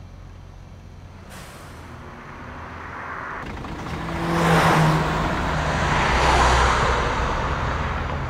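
City bus drawing up, its engine getting louder as it nears, with a hiss of air brakes about four and a half seconds in. It then pulls away, its engine loud and low about six seconds in before fading near the end.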